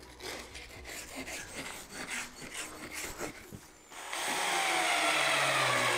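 Stainless-steel wire brush scratching in quick strokes along the edge of an HDPE plastic sheet to abrade it for welding. About four seconds in, a cordless drill starts driving a screw, loud and steady, its motor whine sliding slowly lower under load.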